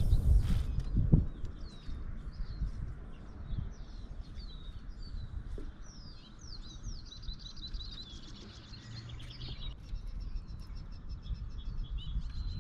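Songbirds chirping and trilling in quick, repeated sweeping notes, with a rapid trill from about six to ten seconds in, over a low steady rumble.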